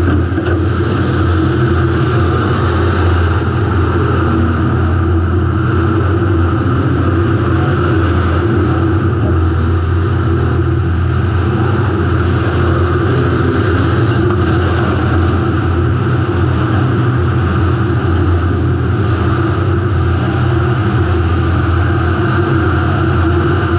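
Demolition derby car's engine running loud and steady, heard from a camera mounted in the car.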